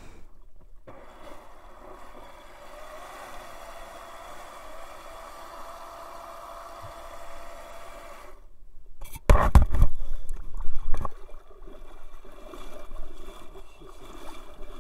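DIY electric jet surfboard's jet drive running with a faint steady whine, water churning from the jet outlet, picked up by a small camera on the board. About nine seconds in the sound drops out for a moment, then loud knocks and rushing noise follow.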